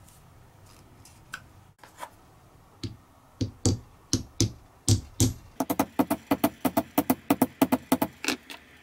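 Claw hammer tapping a small wooden end-cap plug held on a steel anvil block. A few knocks and scattered taps come first, then a quick run of light taps at about six a second near the end.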